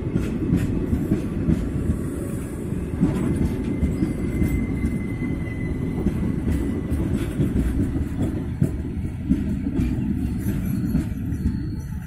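Indian Railways express passenger coaches rolling past at speed on the near track: a loud, steady rumble of wheels on rail with sharp clicks and knocks scattered through it, and a faint high whine a few seconds in.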